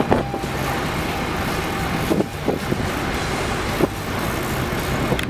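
Steady drone of a fishing boat's engine, mixed with rushing wind and water noise, with a few faint knocks in the middle.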